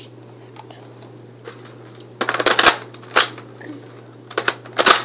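Hard plastic clicking and rattling as a Nerf blaster and its parts are handled: a burst of quick clicks about two seconds in, a single click about three seconds in, and another burst near the end.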